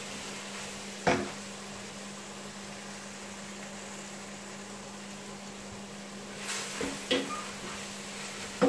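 A wooden spoon stirs a curry base in a stainless steel pot, knocking against the pot a few times, over a steady low hum and a faint hiss.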